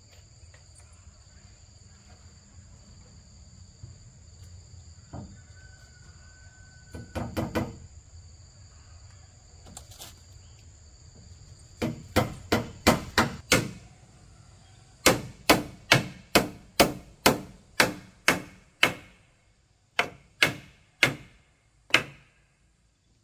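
A hand tool striking wood in quick runs of sharp blows, about two to three a second, with short pauses between runs. Insects chirr steadily in the background.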